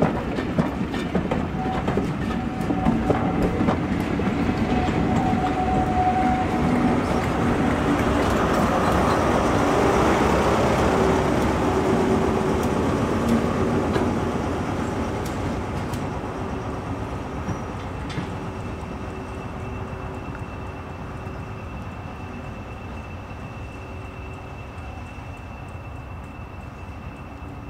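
A heritage diesel locomotive passing, its engine running under power as the wheels click over rail joints. It is loudest about a third of the way in, then fades as it draws away. A faint steady high tone sounds through the last third.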